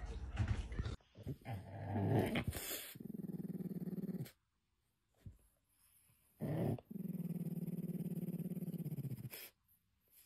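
French bulldog growling with a plush toy in its mouth: two long, even growls of a couple of seconds each, with a short sound between them.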